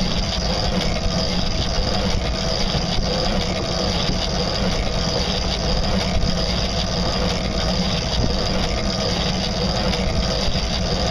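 Small boat's motor running steadily at a medium cruising speed under way on choppy water, with the rush of wind and water mixed in.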